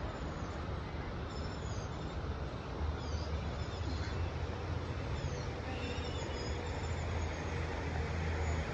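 Small birds chirping, many short high falling notes, over a steady low rumble of outdoor background noise that grows a little louder partway through.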